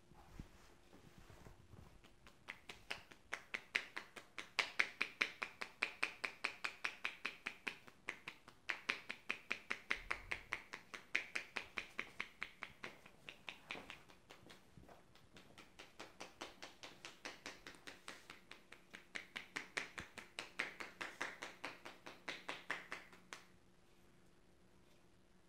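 Hand percussion of a head massage: the masseur's hands tapping rapidly on the scalp, giving a run of crisp pops at about five a second. The tapping eases briefly past the middle, picks up again and stops near the end.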